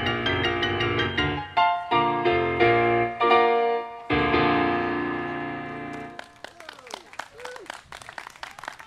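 Piano piece ending: quick repeated notes, a few loud chords, then a final chord left to ring out. Applause starts about six seconds in.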